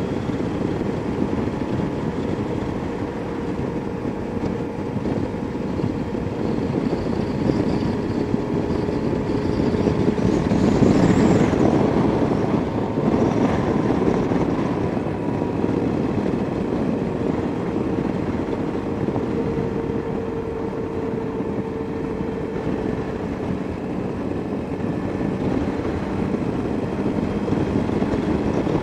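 Motorcycle engine running steadily at road speed, heard from the rider's seat with wind noise over it; the sound swells louder for a few seconds near the middle.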